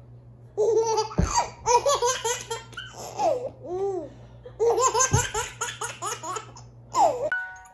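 Baby laughing in repeated bursts of high-pitched giggles, in about four runs with short pauses between, with two dull thumps among them.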